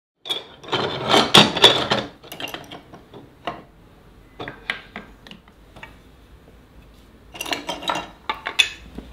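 Small hard objects and tools clattering and clicking as they are handled and set down on a workbench: a busy spell of clatter lasting about two seconds shortly after the start, scattered single clicks, then another short burst of clatter near the end.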